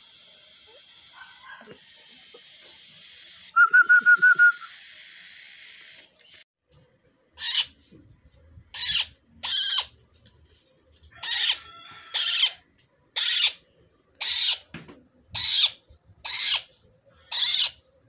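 A cockatiel gives a quick run of about six clear, high chirps a few seconds in. From about halfway on, a green parrot chick gives harsh, raspy calls about once a second, each about half a second long.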